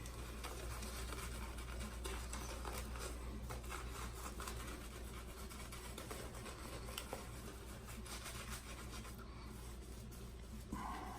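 A shaving brush working soap into a lather: a steady, soft, scratchy rubbing of bristles with small ticks.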